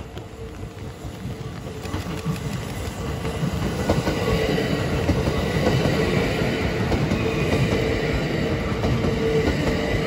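Kintetsu 20000 series 'Tanoshi' electric train passing close by, its wheels running on the rails. The sound grows louder over the first four seconds as the train nears, then stays loud while the carriages go past, with a steady hum running through it.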